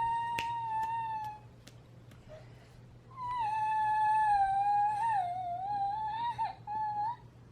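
Young child crying in a tantrum: two long, high-pitched wails, a short one at the start and a longer, wavering one from about three seconds in.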